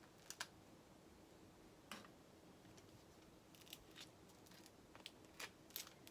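Metal spoon scraping cream cheese onto a crusty toasted baguette slice, heard as faint, scattered scratchy clicks.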